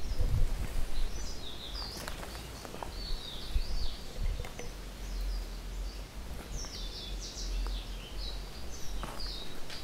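Outdoor ambience of birds calling: repeated short, falling high-pitched chirps from several birds, over a steady low rumble, with a few brief clicks.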